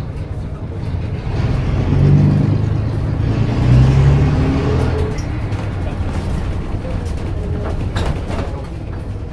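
Leyland O.680 straight-six diesel of a Bristol RELL6L bus, heard from inside the saloon, pulling the bus along. Its note climbs in pitch and grows louder from about two seconds in, drops back at about the five-second mark, then runs on more evenly. A few sharp knocks come near the end.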